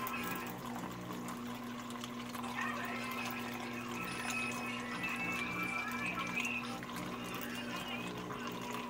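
Evaporated milk pouring in a thin, steady stream from a can into milk in a metal wok, a continuous liquid trickle over a steady low hum.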